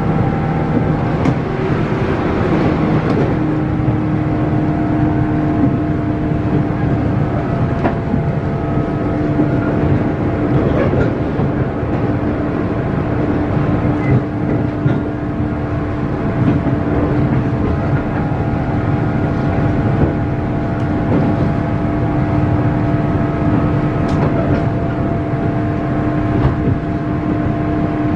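JR 117 series electric train heard from inside the car while running at speed: the loud, steady whine of its MT54 traction motors over the rumble of wheels on rail, with a few scattered clicks.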